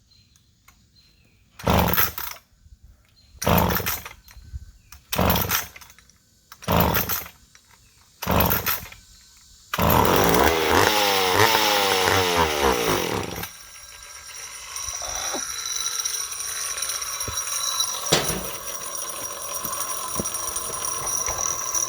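McCulloch 10-10A two-stroke chainsaw being pull-started: five pulls on the starter rope, then about ten seconds in the engine fires on a small charge of fuel and runs with its revs rising and falling for about four seconds before it drops away.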